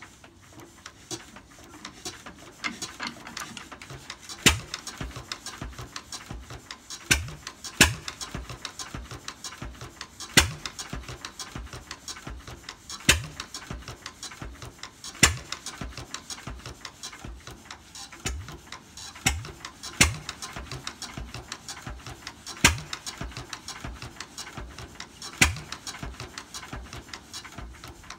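1942 Witte 6 HP KD diesel engine on a cold start attempt without starting aids: a fast, steady mechanical clatter, with a sharp loud knock about every two to three seconds.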